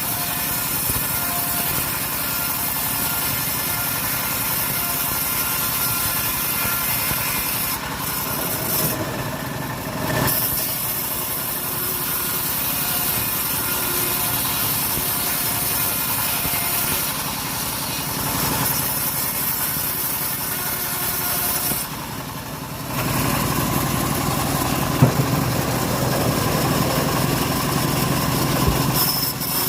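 Engine of a homemade engine-driven circular saw rig running steadily. About three-quarters of the way through it dips briefly, then comes back louder and deeper.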